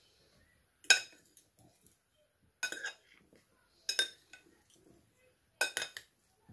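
Salad servers clinking against a glass salad bowl while a dressed salad is tossed, in four short bursts of knocks about a second and a half apart.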